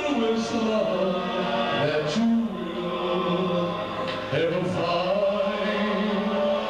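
A man singing long held notes into a microphone over backing music.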